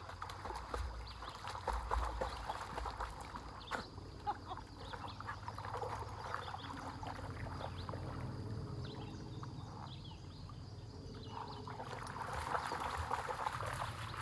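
Water splashing and sloshing as ponies swim and wade through a flooded field. The splashing is busiest in the first few seconds, eases off through the middle, and picks up again near the end as a pony comes out through the shallows close by.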